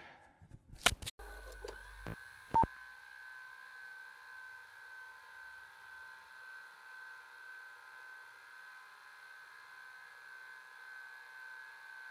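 A few sharp clicks and electronic blips in the first three seconds, then a steady electronic drone with a thin high tone that holds unchanged.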